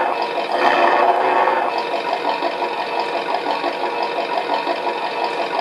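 Ford V8 engine sound played by a Beier USM-RC-2 sound module through a small loudspeaker on an RC truck. It is louder for about the first second and a half, then settles into a steady idle with an even pulse.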